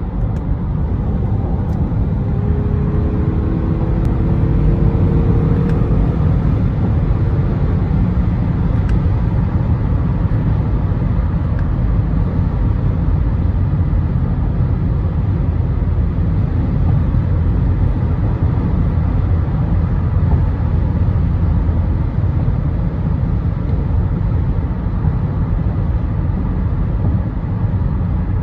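Cabin noise of a 2012 Acura MDX cruising on the highway: a steady low rumble of road and tyre noise. A faint rising tone comes through for a few seconds shortly after the start.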